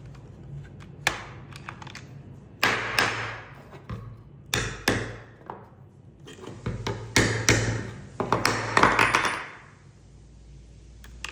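Hard SLS 3D-printed nylon parts being knocked and handled: a series of sharp knocks and clacks, several in quick pairs, with a denser run of clattering about eight to nine seconds in.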